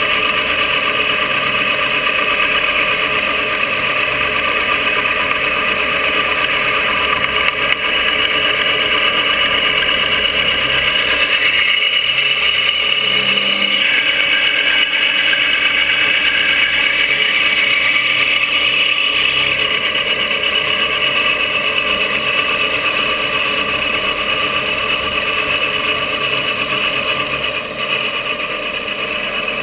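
Benchtop milling machine running, its end mill cutting the trigger pocket of an EP Armory 80% AR-15 lower: a steady machine whine made of several held tones over a grinding hiss. The tone shifts briefly near the middle as the cut changes.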